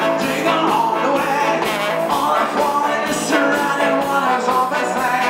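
Live rock band playing: electric guitars, bass guitar and drum kit with a steady beat, and a male singer at the microphone.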